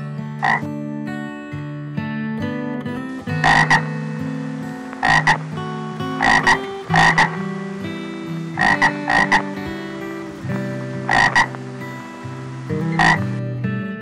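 Water frog calling: short croaks, singly and in quick pairs, repeated every one to two seconds.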